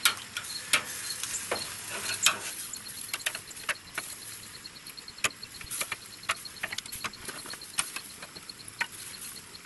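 Chicken thighs sizzling on the hot grate of a Pit Barrel Cooker, with scattered clicks and knocks as the pieces are shifted around on the metal grate.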